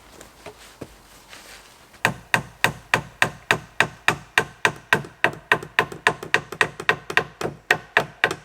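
A rapid, even series of sharp wooden-sounding knocks, about four a second, starting suddenly about two seconds in.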